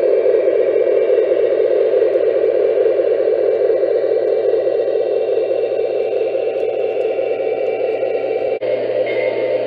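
Lionel O-gauge model train running past on three-rail track: a steady, loud running sound from the wheels and motors together with the locomotive's onboard sound system. The sound changes abruptly near the end, when higher tones come in.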